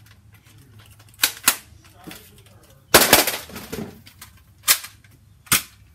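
Toy Nerf blaster shots and foam-dart hits, heard as sharp separate pops: two close together about a second in, a louder clattering one around the middle, then two more single pops.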